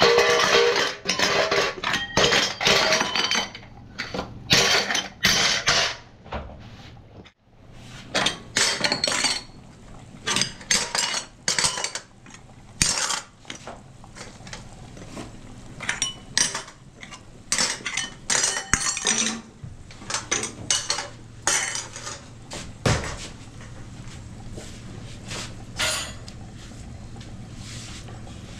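Dishes, pots and cutlery clinking and clattering in irregular knocks and clinks, busiest in the first few seconds.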